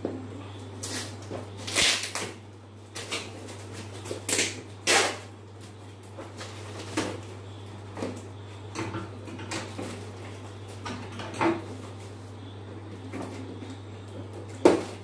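Scissors snipping and cutting through the packing tape and cardboard wrapping of a parcel, with rustling and crackling of the cardboard as it is handled: irregular short sharp sounds, a dozen or so, the strongest about two seconds in, about five seconds in and near the end. A steady low hum runs underneath.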